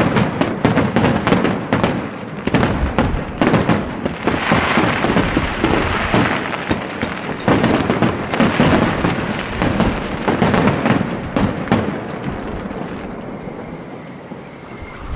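Fireworks finale barrage: shell bursts going off in rapid, overlapping bangs, thinning out and dying away over the last few seconds.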